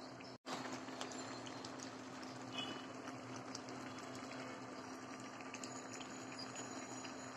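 Thick tomato-based rajma curry simmering and bubbling in a pan, with a steady low hum under it. The sound cuts out for a moment about half a second in.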